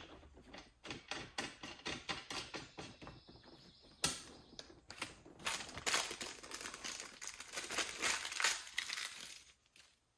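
Small clear plastic hardware bag crinkling as it is handled, with irregular light clicks of small metal fittings knocking together. The crinkling is busiest in the second half.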